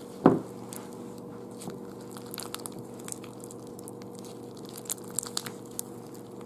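Clear Elmer's-glue slime packed with foam beads being squeezed and stretched by hand in a glass bowl: scattered small crackles and pops as the beads and slime are worked, with one louder thump about a third of a second in.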